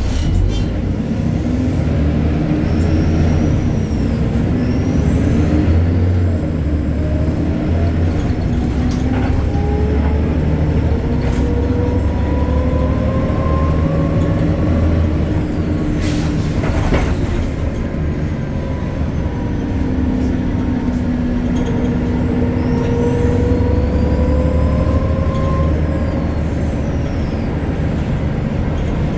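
City bus's Deutz diesel engine and ZF automatic gearbox under way, with a low engine rumble and a whine that rises slowly in pitch as the bus gathers speed, drops, then rises again. A brief hiss of air comes about halfway through.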